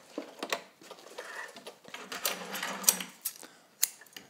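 Scattered clicks and rustles of a 1960s Kenmore Model 120 all-metal sewing machine being handled: the handwheel is turned by hand and the layered drapery fabric is slid out from under the presser foot.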